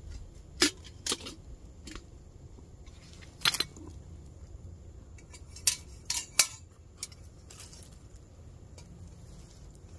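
Metal canteen cup and its lid handled with gloved hands, the lid coming off the cup of boiled water: a scattering of short, sharp metallic clinks and clanks, the loudest about three and a half seconds in and a quick cluster around six seconds.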